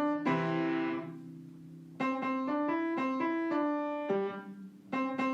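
Background piano music: runs of struck notes and chords, with one chord left to ring and fade about a second in before the playing picks up again.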